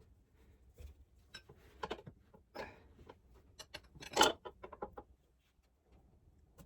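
Tools and parts being handled while hand-mounting a motorcycle tyre: scattered clicks and knocks, with one louder clank about four seconds in and a quick run of small ticks around it.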